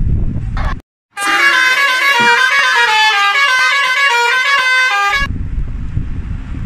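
Musical vehicle horn playing a quick tune of changing notes for about four seconds, starting abruptly after a moment of dead silence and cutting off sharply. Low rumbling noise comes before and after it.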